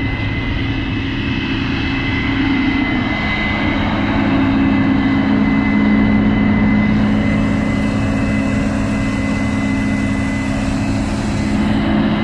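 A steady engine drone with a thin high whine over it, unbroken throughout.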